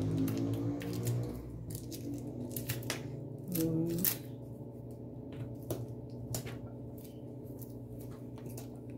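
Hands handling macramê cord: scattered light clicks and taps with soft rustling, thinning out after about six seconds, over a steady low hum. A brief low vocal sound about three and a half seconds in.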